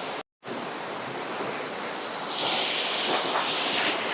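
Fast-flowing creek water rushing steadily, broken by a brief dead gap just after the start. About two seconds in it turns brighter and hissier.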